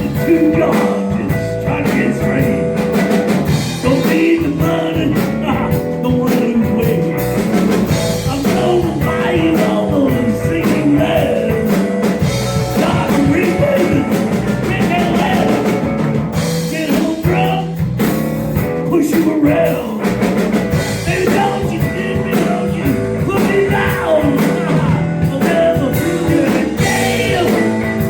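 Live blues band playing a steady rock-blues groove, with guitar and a drum kit.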